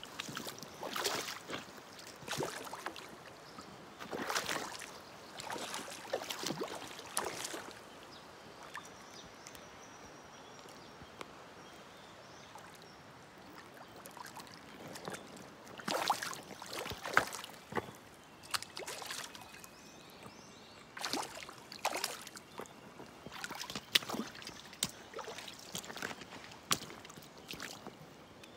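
Water splashing in irregular bursts as a large hooked rainbow trout thrashes at the surface, over the steady rush of river current. A quieter spell in the middle holds only the current.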